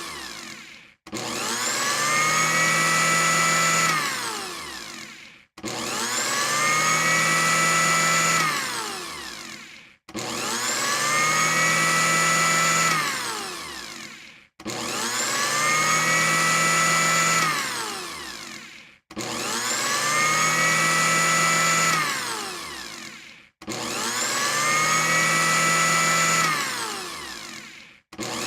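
Electric blender motor run in repeated short bursts, about every four and a half seconds. Each time the whine climbs to speed, holds steady for about two seconds, then winds down in pitch and stops before the next start.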